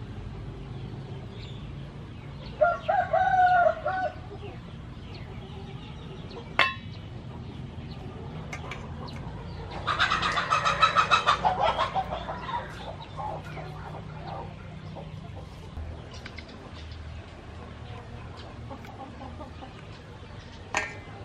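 A bird calling twice: a short call about three seconds in, then a longer, louder call about ten seconds in. A sharp click comes at about six seconds and another near the end.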